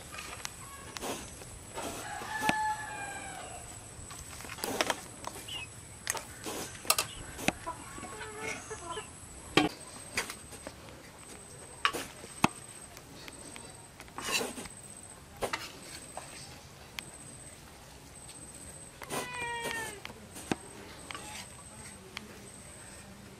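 Metal serving spoon clinking and scraping against bowls and plates as rice is dished out. Chickens call in the background, with a rooster crowing about three-quarters of the way through.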